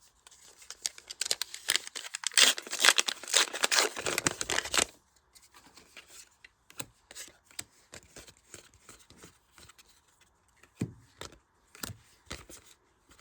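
A foil trading-card booster pack being torn open and crinkled for about four seconds, then quieter rustling and light clicks as the cards are slid out and handled.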